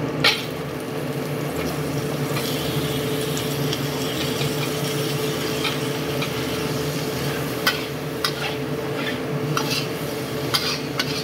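Metal spatula stirring and scraping in a wok of sliced luffa and garlic frying in oil, with a steady sizzle. Several sharp clinks of the spatula against the wok, one right at the start and a cluster in the second half.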